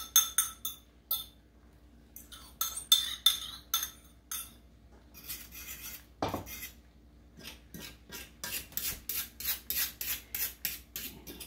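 A utensil scraping and clinking against a bowl and a skillet as food is scraped out and stirred in the pan, in short strokes, with one knock about halfway through and quicker scrapes, about four a second, near the end.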